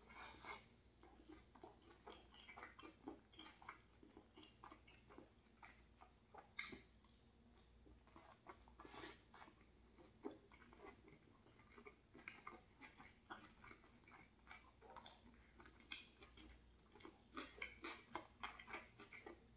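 Faint close-mouthed chewing of a bite of tuna flatbread with tomato and celery: soft, irregular wet clicks and small crunches.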